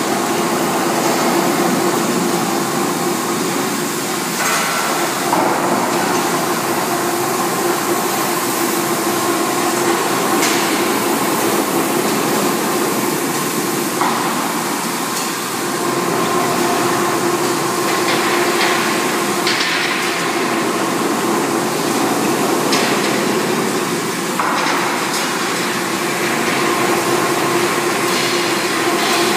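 Industrial rotary drum dryer on a test run, the steel drum turning on its girth gear and support rollers: a steady mechanical drone with a constant hum, broken by occasional sharp metallic knocks.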